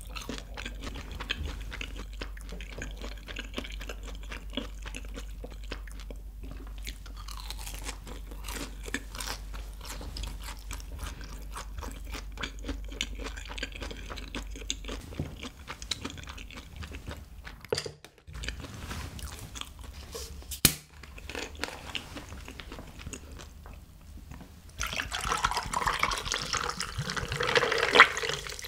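Close-miked chewing of a fried cheese ball, with soft crunching and wet mouth sounds. About 25 seconds in, a drink is poured from a plastic bottle over ice into a glass, louder than the chewing and growing toward the end.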